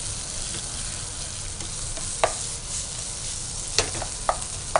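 Potato, capsicum and onion filling frying in oil in a pan, a steady sizzle, while a metal spatula stirs it. A few sharp clicks of the spatula against the pan, one about two seconds in and several near the end.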